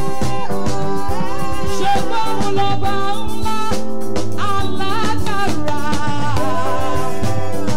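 Live gospel worship music: a woman singing lead over a band, with a drum kit keeping a steady beat under sustained chords.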